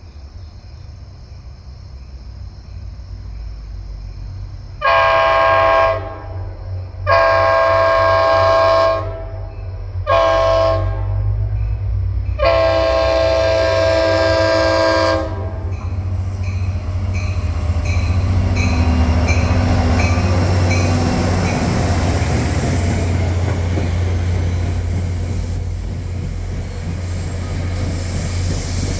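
NJ Transit locomotive horn sounding the grade-crossing signal: two long blasts, a short one, then a final long one. The train then passes with a low engine rumble and regular clicking of wheels on the rails.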